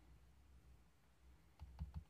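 Near silence, then about three light clicks near the end from fingers on a 2-in-1 tablet's keyboard dock, pressing keys or the trackpad.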